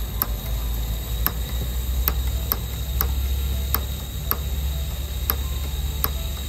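Piezo igniter of a gas canister camping stove clicking again and again, about a dozen sharp snaps roughly half a second apart, without the burner catching: this igniter has worked badly since it was bought. A steady low rumble runs underneath.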